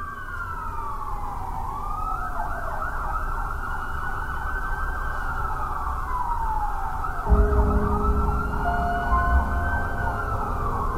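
Emergency vehicle siren wailing, its pitch slowly rising and falling over and over above a low rumble. About seven seconds in, a deeper steady drone with low held tones comes in and gets louder.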